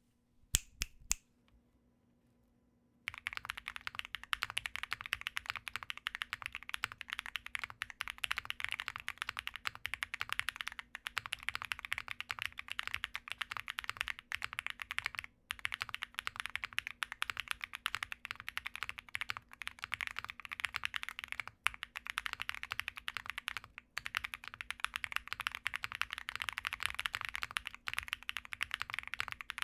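Custom mechanical keyboard being typed on fast, a steady stream of key clicks with a marbly sound. A few separate key strikes come first, then a short quiet gap before continuous typing with brief pauses.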